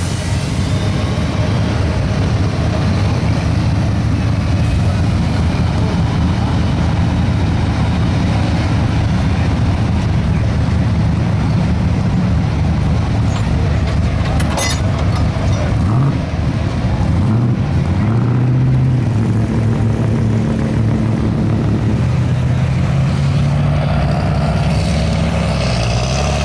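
1977 Chevrolet pickup's gasoline engine running hard at high revs, pulling a weight-transfer sled down the track. From about two-thirds of the way in, the engine pitch rises and falls in swings at lower revs.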